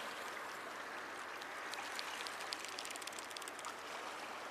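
Steady hiss of sea water washing in the harbour, with a scatter of faint small ticks in the middle.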